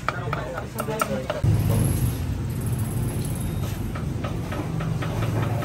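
Cleaver chopping meat on a wooden chopping block, a quick run of sharp knocks that stops about one and a half seconds in. Then a vehicle engine runs steadily with a low hum.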